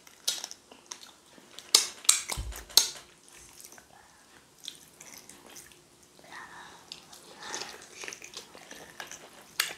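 Close-up eating sounds: wet mouth clicks and lip smacks from chewing soft fufu and egusi soup eaten by hand. The clicks are scattered, most of them in the first three seconds, with one more sharp smack near the end.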